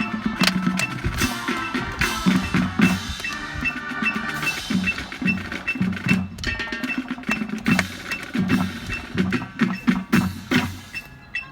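Music with percussion: frequent sharp knocks over pitched tones, and a short high note repeating at a steady pace.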